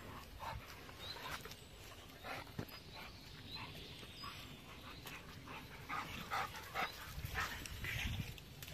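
A pit bull dog making quiet sounds, amid scattered light clicks and knocks.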